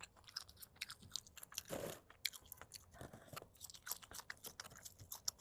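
Close-up chewing and biting on a sesame-oil strip snack, a run of small irregular crunchy clicks from the mouth.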